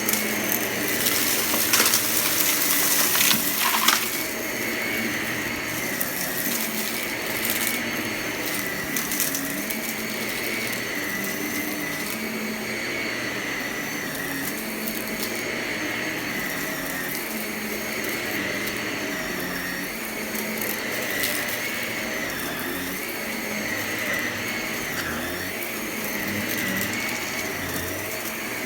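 Vacuum cleaner running steadily with a wavering motor whine over its rushing airflow, sucking up crunchy debris. A burst of crackling and rattling comes between about one and four seconds in as pieces are drawn in, and scattered clicks follow.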